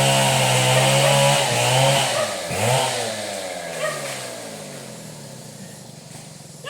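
Two-stroke chainsaw engine running steadily at high speed, revved briefly about two and a half seconds in. Its pitch then falls and it quietens as the throttle is let off.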